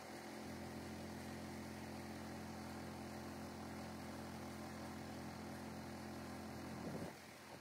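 Faint, steady drone of an engine-driven air compressor working while the tire is aired up through the open valve stem; it comes up about half a second in and drops off abruptly about seven seconds in.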